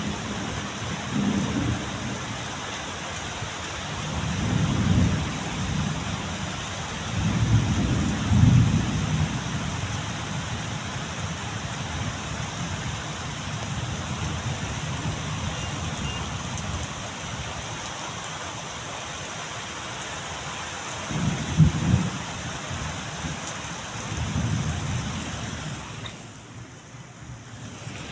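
Steady heavy rain falling, with several low rumbles of thunder coming and going; the strongest are about eight seconds in and again near twenty-two seconds. The rain eases briefly near the end.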